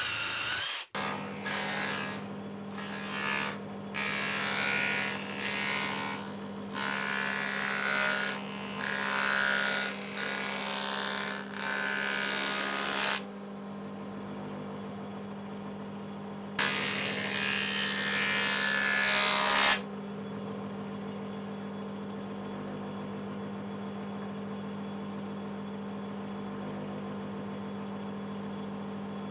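Electric 6-inch surfacer planer running with a steady hum, with louder cutting noise as boards are fed over the blades: several passes in the first half and one more a few seconds later, then the machine runs free.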